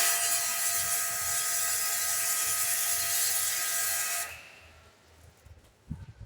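Pressure washer jet spraying a bicycle chain: a loud, steady hiss with a constant motor whine, which cuts off suddenly about four seconds in.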